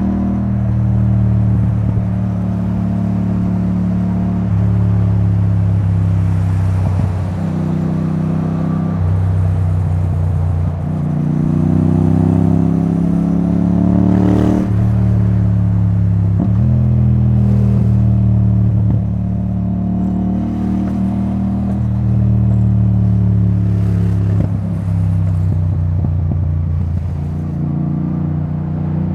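Yamaha XSR700's 689 cc CP2 parallel-twin running at freeway speed through a debaffled Akrapovic titanium exhaust. Its pitch rises and falls in steps several times with throttle and gear changes, with one long rise about eleven to fourteen seconds in that breaks off suddenly.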